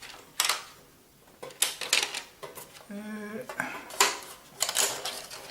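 Prismacolor colored pencils clattering and clicking against each other as they are handled, in several separate bursts of sharp knocks.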